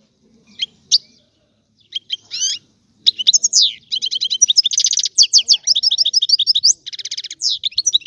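European goldfinch singing: a few scattered short calls at first, then from about three seconds in a fast, unbroken twittering song of rapid high trills and chirps, with a buzzy trill near the end.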